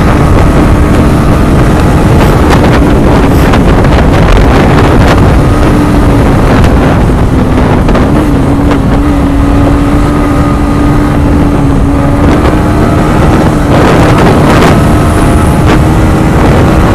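Yamaha MT-15's single-cylinder engine running at a steady cruising speed, with heavy wind noise on the microphone. The engine note dips slightly and recovers about eight seconds in.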